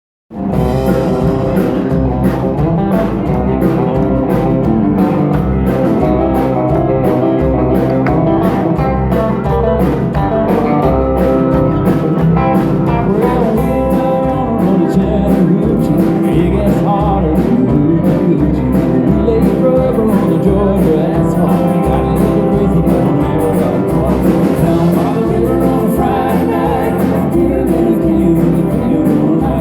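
Live band playing country rock: electric guitar and a steady bass-and-drum beat, with singing.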